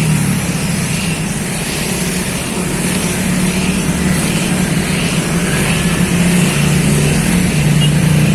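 A vehicle engine running with a steady low drone, growing slowly louder toward the end.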